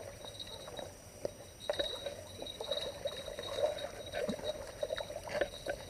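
A hooked catfish splashing and thrashing in shallow water at the bank as it is reeled in: a run of small, irregular splashes and scrapes.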